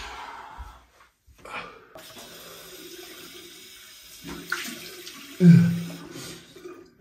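Tap running steadily into a bathroom sink while a man splashes water over his face. About five and a half seconds in comes a loud, short vocal blow that falls in pitch.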